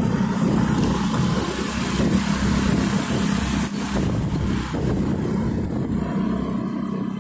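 Motorcycle engine running at a steady pace, heard from the pillion seat, with road and wind noise.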